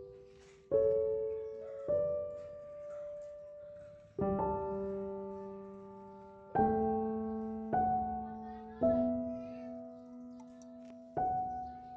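Slow, gentle solo piano background music: single chords struck every one to two seconds, each left to ring and fade before the next.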